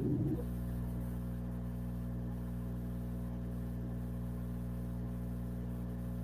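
Steady low electrical hum made of several even pitches, picked up on an open microphone on a video call. It runs unchanged, with no other sound over it.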